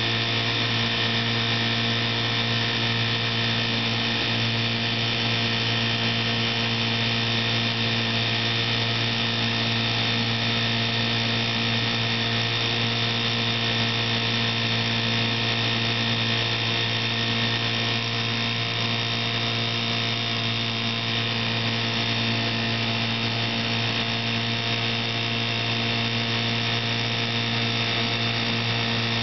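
1955 Johnson CD-12 5.5 hp two-cylinder two-stroke outboard motor running steadily under way, pushing a heavily loaded 14-foot aluminum boat.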